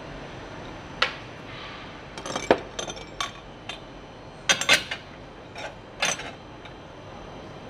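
Steel press-tool parts (spacer tubes, washers and a threaded bar) clinking and knocking against each other and the trailing arm's bush eye as they are fitted together by hand, in irregular clusters of sharp metallic clicks.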